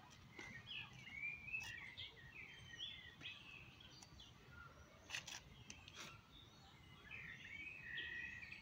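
Songbirds singing and chirping, faint, with a few sharp clicks near the middle.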